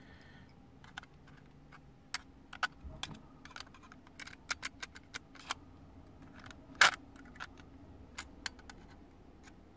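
Irregular small clicks and taps of hands working the metal chassis and cassette mechanism of an Alpine 5313 car cassette deck being taken apart, with one sharper, louder click about seven seconds in.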